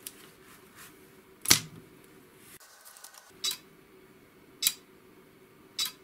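Ultra Electronics landing gear lever's 28 V override solenoid clicking as it is energised. There are sharp clicks about a second and a half in, then roughly once every 1.2 seconds; the first is the loudest.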